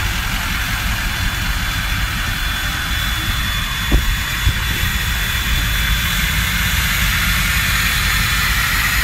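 Lifted Ford diesel van's engine idling: a steady low rumble with a high, jet-like whine over it. A single short knock about four seconds in.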